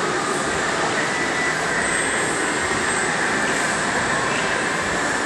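Steady din of an amusement arcade: a dense, even wash of noise with a few high steady tones running through it.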